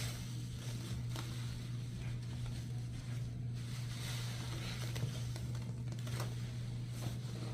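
Sponge being squeezed and worked, giving soft squishing and crackling swells with a few small clicks, over a steady low hum.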